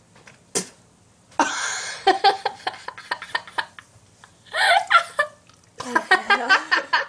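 Two girls coughing, sputtering and laughing with dry ground cinnamon in their mouths. A breathy cough-like blast about a second and a half in is followed by rapid choppy bursts, then voiced laughing or groaning near the end.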